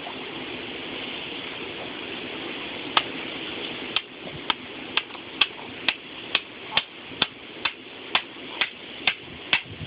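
Sharp clicks repeating evenly, about two a second, starting about three seconds in, over a steady hiss.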